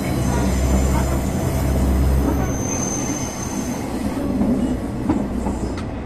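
KiHa 120 diesel railcar under way, heard from the gangway between two coupled cars: a strong low engine drone that drops away about two and a half seconds in. Under it runs rumbling wheel and track noise, with a thin high squeal from the wheels around the middle and a few rail-joint clacks near the end.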